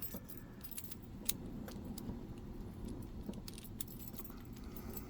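Keys jingling and light metallic clicks as a key is worked in a euro cylinder lock, the key turning the plug and cam round together. One sharper click comes about a second in.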